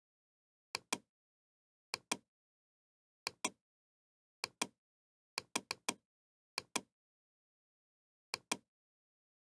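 Computer mouse button clicks, each a sharp pair of clicks from the button pressed and released, coming about once a second with a quicker run of four clicks about halfway through.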